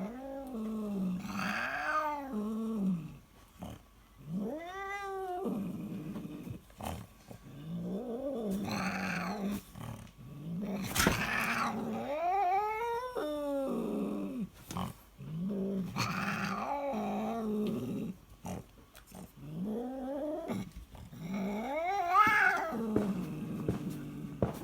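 Domestic cat snoring: a drawn-out, pitched breath sound that rises and falls in pitch, repeating with each breath about every three to four seconds.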